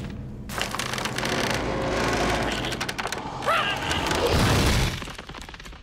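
Cartoon crash sound effects: a long, rumbling boom that builds and then fades near the end. A short squeaky vocal yelp comes about three and a half seconds in.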